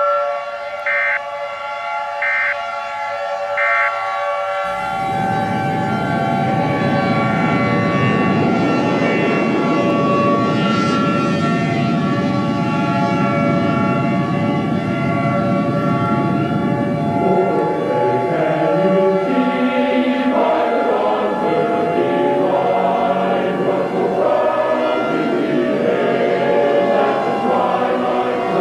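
A steady, siren-like drone of several held tones with three short high beeps in the first few seconds. About five seconds in, a loud low rumbling noise joins it, and choral singing comes in from about seventeen seconds.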